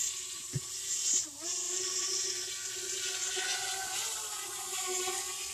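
Quadcopter drone's propellers whining at a hover, a cluster of steady tones over a hiss, dipping briefly in pitch about a second in and then holding steady.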